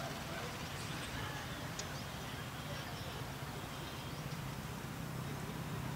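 Outdoor ambience on an open cricket ground: a steady low hum under a haze of background noise, with faint distant voices and a few short high chirps.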